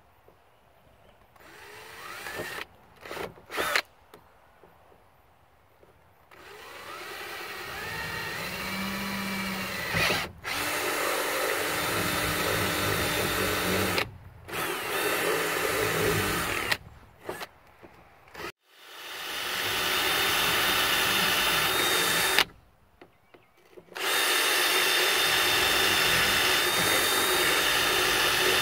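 Cordless drill boring and hollowing out a PVC cap. It starts with a few short bursts, then runs in stretches of a few seconds with short stops between, the motor winding up in pitch as it starts again.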